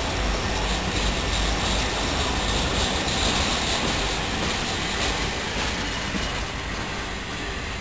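Florida East Coast Railway freight train passing close by: the diesel locomotives rumble as they pull away, and the freight cars roll past with a steady rumble and clatter of wheels on the rails. The sound eases off slightly near the end.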